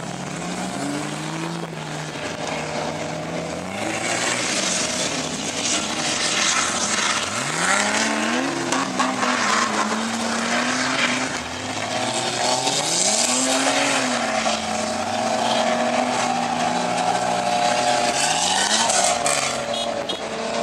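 A 4x4's engine revving hard over and over while dune bashing in sand, its pitch climbing sharply several times and then settling. A loud hiss of tyres spinning through sand runs under it.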